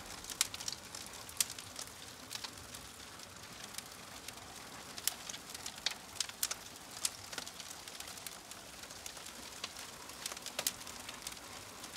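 Logs burning in a wood-fired cook stove's firebox, crackling with irregular sharp pops, a few a second, over a faint hiss.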